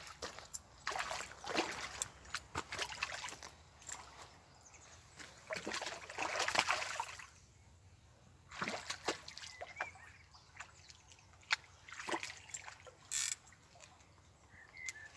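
A hooked tench splashing at the surface in irregular bursts as it is played close in on the rod.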